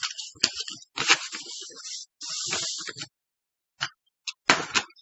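Paper sheets rustling and crinkling as a printed worksheet is handled and turned to the next page: a string of crackling, scraping rustles with short gaps, plus a few sharp clicks.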